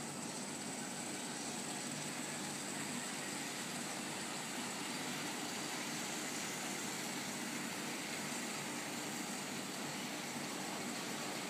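Several HO scale model trains running around the layout's track: a steady running noise of small electric motors and metal wheels on the rails.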